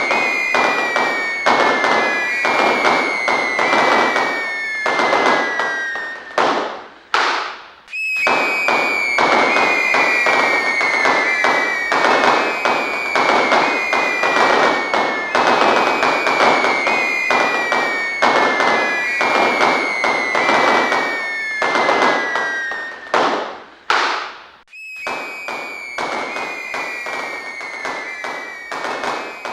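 Fireworks crackling densely and continuously, with short whistles falling slightly in pitch about every second and a half. The sound drops out briefly twice.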